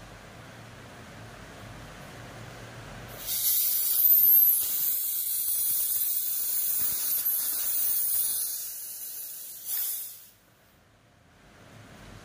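High-pressure air hissing out of a PCP air tube and paintball regulator as the pressure is vented. A loud, steady hiss starts about three seconds in, with a brief high whistle at first, and cuts off about ten seconds in.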